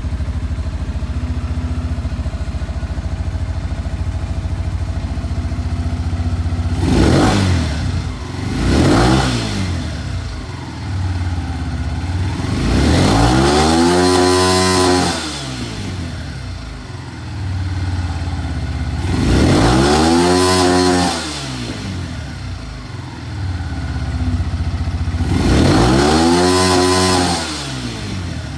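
Shelby Renz 200 motorcycle engine idling, then revved by the throttle five times. First come two quick blips, then three longer revs that climb and fall back to idle.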